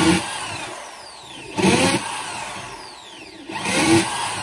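Corded electric drill boring a small hole into a wooden floorboard, run in three spurts about two seconds apart. Each spurt starts loud and its whine falls in pitch as the bit slows in the wood.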